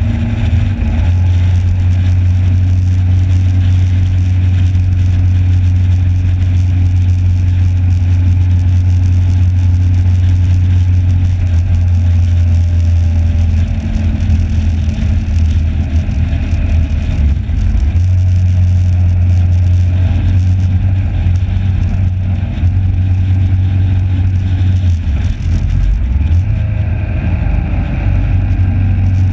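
Motorcycle engine running hard at track speed, picked up by a camera mounted on the bike: a loud steady drone that dips briefly a few times.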